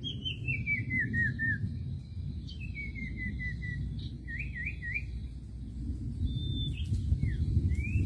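Common iora (sirtu) whistling. It gives a stepped run of notes falling in pitch, then a second shorter falling run, then three quick up-and-down notes about halfway in. Short high whistles and a rising note come near the end, over a steady low rumble.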